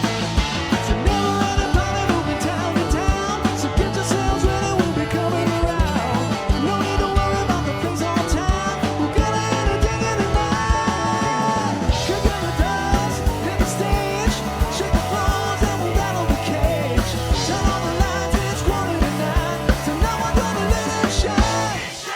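Live country band playing a song, the drums keeping a steady beat under guitars.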